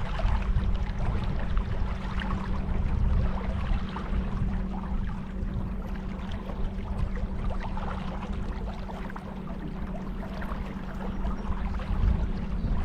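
Water splashing and lapping around a kayak on the river, in many small uneven splashes, over a steady low hum that holds one pitch throughout.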